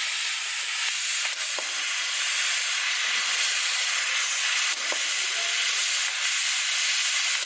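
CNC fiber laser cutting metal plate: a steady hiss of assist gas jetting from the cutting head, with a few faint ticks.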